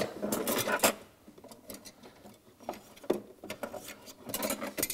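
Metal dent-repair tools and tool holders being handled and slotted into the underside of a tool cart: a run of clicks and knocks, with quieter rubbing in between. The clicking comes in two spells, one in the opening second and one near the end.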